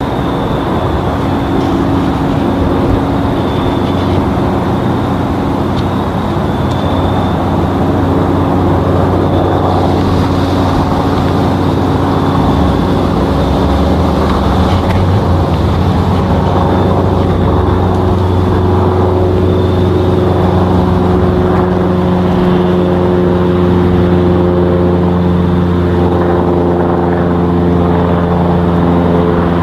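Cessna 172S Skyhawk SP's four-cylinder piston engine and propeller droning steadily overhead in level cruise, its hum held at a few steady pitches that shift slightly in the second half as it passes.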